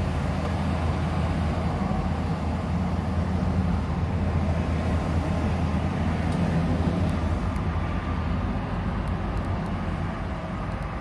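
Steady low engine rumble of road traffic and passing semi trucks, heard from inside a car, easing off a little near the end.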